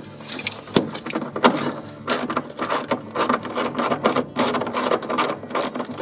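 Hand ratchet wrench clicking in quick, uneven runs of strokes as it backs out the upper seat-belt anchor bolt.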